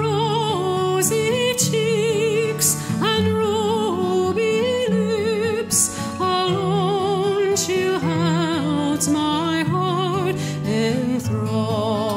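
A song with a singer holding long notes with vibrato over steady low accompaniment.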